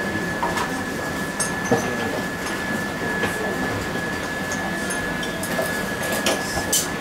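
Steady room noise with a thin, constant high whine, and a few light clicks of a ceramic spoon against a porcelain bowl, twice early on and twice near the end.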